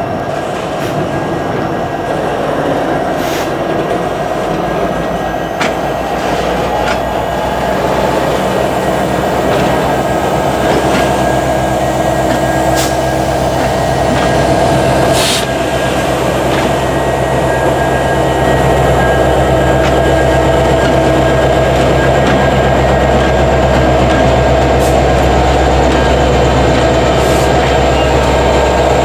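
EMD 16-710 V16 two-stroke diesel prime mover of a diesel-electric locomotive running, its low rumble growing louder in steps about six and eighteen seconds in. A few sharp clicks sound over it.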